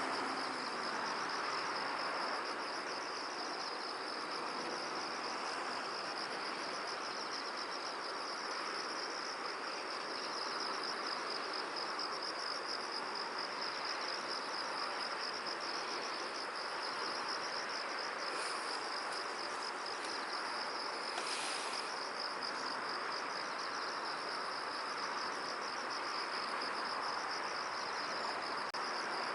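Crickets chirping in a continuous, rapidly pulsing high trill over a steady soft hiss of wind. A brief rustle sounds about 21 seconds in.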